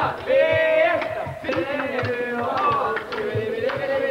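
Voices singing a slow melody with long held notes over a steady low beat.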